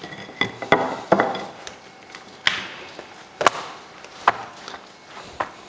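Irregular sharp knocks, roughly one or two a second, from a wooden rolling pin and hands tamping hot caramelized peanut, almond and raisin brittle flat between silicone baking mats.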